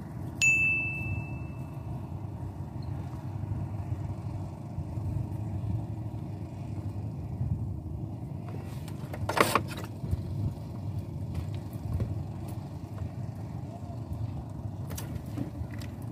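A steady low motor hum throughout. A single bright metallic ping rings out about half a second in and dies away, and there is a brief rustling knock a little after nine seconds.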